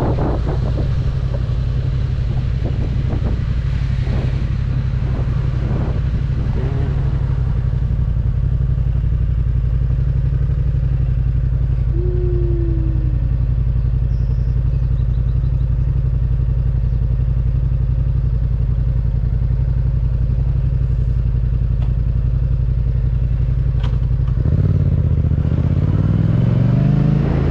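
2019 Yamaha MT-07's parallel-twin engine through a Yoshimura R77 carbon-fibre exhaust, running steadily at low revs for most of the stretch. Near the end the revs climb as the bike pulls away.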